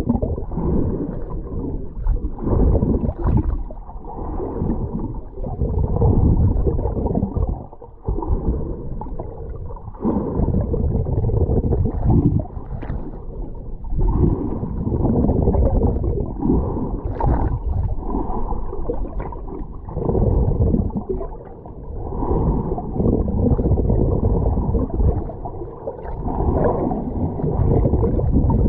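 Sea waves washing in, a low rushing that swells and falls back every few seconds.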